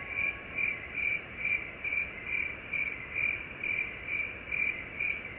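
Cricket chirping steadily, about two chirps a second, over a low hiss. It is the comic 'crickets' cue for no response.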